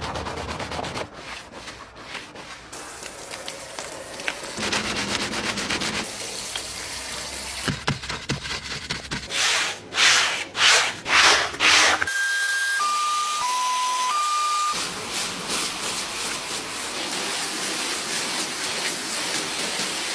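Car-detailing brushes scrubbing foamy surfaces, with several loud strokes of a stiff brush about halfway through, and water spray hissing steadily from a hand-held hose nozzle near the end. Four short electronic tones at different pitches come just after the loud strokes.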